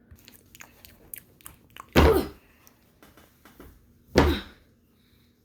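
Two short, loud coughs about two seconds apart, after a run of small clicks and taps.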